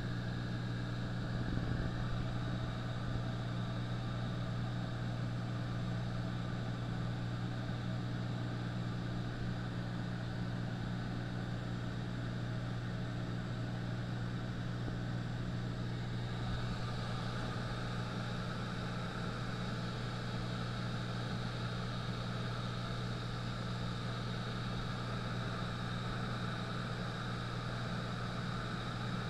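Piston engine and propeller of a light high-wing aircraft in cruise, heard from inside the cabin as a steady, even drone. A higher rushing hiss grows louder about halfway through.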